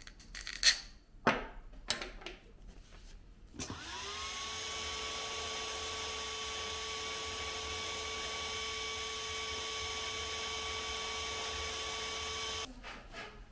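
Heat gun switched on a few seconds in: its fan whine climbs quickly to a steady pitch with a rush of air, warming acrylic tubing for a bend, then cuts off suddenly shortly before the end. Before it starts, a few sharp clicks and knocks.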